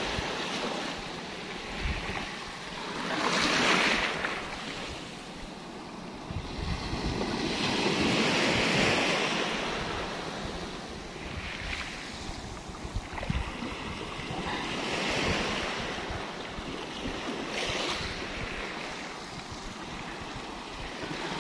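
Small waves breaking and washing up the beach, the surf swelling and fading about every four seconds, with wind buffeting the microphone.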